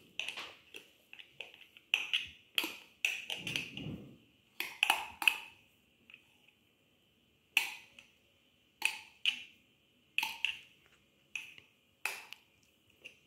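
Sharp clinks of a glass jar against an enamel bowl as activated yeast is poured and tipped out onto flour: about fifteen irregularly spaced taps, each with a brief metallic ring.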